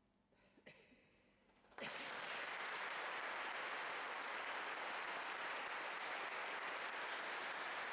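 Near silence, then about two seconds in an audience's applause cuts in suddenly and carries on steadily.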